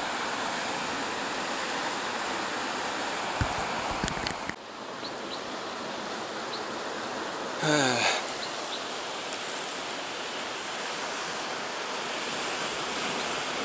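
Steady rushing hiss of ocean surf washing over a rocky shore, mixed with wind. A few short clicks come about four seconds in, and the noise changes abruptly just after.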